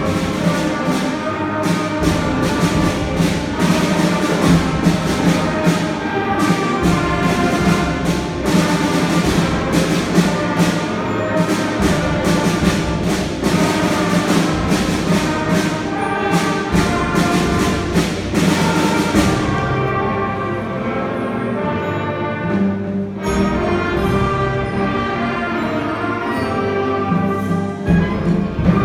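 Orchestral music with brass and percussion, loud and dense for most of the passage, thinning out about two-thirds of the way through before building again near the end.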